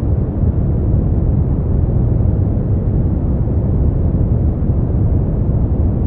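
Brown noise: a steady, deep hiss with most of its energy in the low end, fading toward the treble, with no changes or events.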